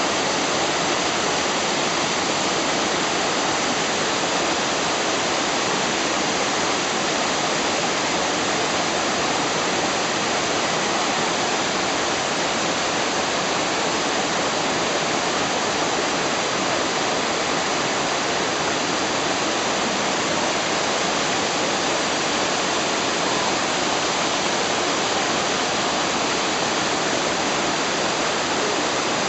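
Steady rush of Mototaki Falls, a spring-fed waterfall whose water is underground flow from Mount Chokai pouring out.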